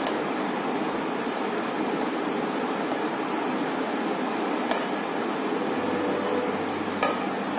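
Steady, even rushing background noise, like a fan running, with a couple of faint taps about five and seven seconds in as chopped tomato pieces are dropped into a stainless steel mixer-grinder jar.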